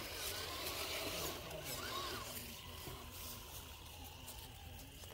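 Small electric motor of an RC crawler whining, rising and falling in pitch with the throttle about two seconds in, over a steady low rumble and scattered crackles.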